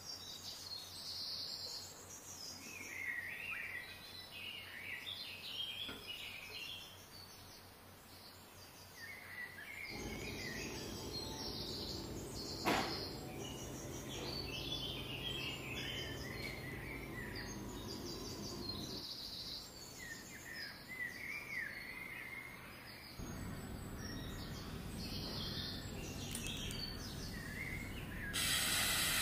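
Small birds chirping and twittering in short bursts over a low steady background noise, with one sharp click about halfway. A loud steady hiss starts near the end.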